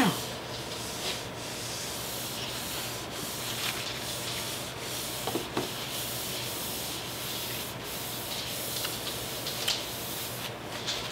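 Paper napkin rubbed and wiped across a desktop: a continuous scratchy rubbing made of many small, irregular strokes.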